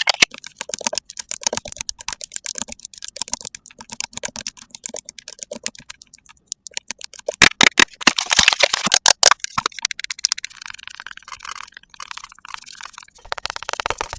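ASMR makeup sound effects: rapid, crisp tapping and clicking, with a louder stretch of brushy scratching starting about halfway through.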